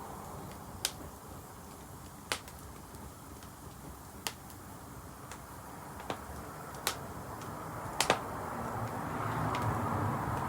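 Wood fire crackling: sharp, irregular pops every second or two, with a double pop about eight seconds in, over a steady rushing noise that swells near the end.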